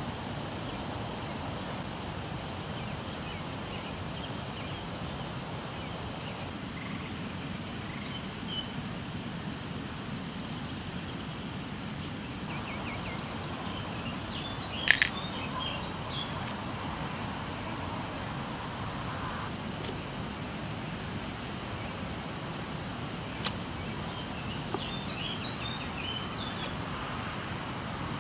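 Outdoor campsite ambience: a steady background hiss with birds chirping now and then. A single sharp click stands out about halfway through, with a fainter one later.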